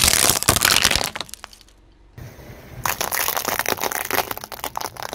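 Brittle objects cracking and crunching as a car tyre rolls over them: a dense run of sharp snaps, a pause of about a second, then a second run.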